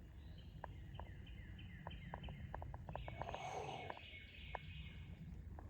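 Faint bird chirps in woodland, thickest about halfway through, over a low rumble with scattered light clicks.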